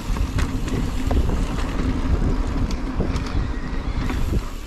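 Wind buffeting the microphone of a mountain bike riding down a dirt trail: a steady low rumble with scattered clicks and rattles from the bike and tyres, easing off near the end.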